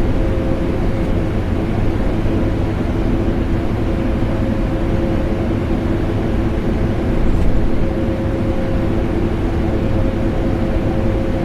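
Vacuum cleaner and air conditioner running together: a steady rushing hum with a few held tones, swelling slightly about seven seconds in.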